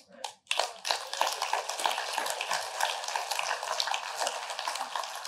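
Congregation applauding: a dense patter of many hands clapping that swells in about half a second to a second in and keeps on steadily.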